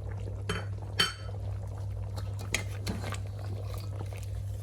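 Dishes and a spoon clinking and knocking against a cooking pot as chopped tomatoes and dry spices are tipped in, with a few sharp clinks, the loudest about a second in, over a steady low hum.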